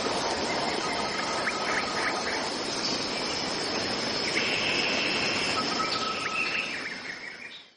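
Tropical forest ambience: a steady high insect drone over a hiss, with scattered short bird calls and chirps, fading out near the end.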